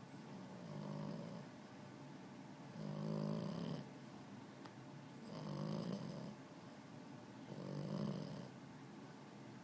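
Puppy snoring: four low-pitched snores, about one every two and a half seconds, each lasting around a second.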